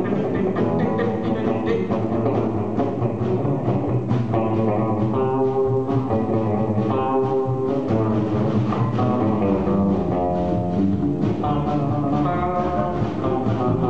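Live band playing an instrumental passage, led by acoustic and electric guitars.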